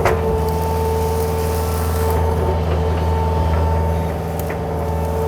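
John Deere mini excavator's diesel engine running steadily, with a constant higher-pitched whine over it. There is a sharp click right at the start.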